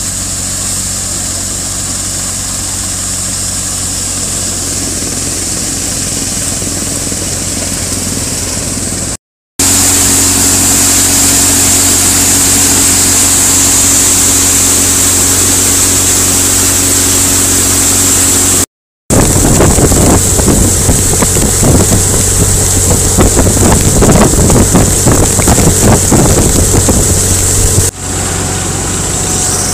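Tractor-driven barley thresher running at full speed: a steady engine-and-machine drone with a strong hiss, cut off briefly twice. For a stretch past the middle it gets louder, with an irregular rattle over the drone.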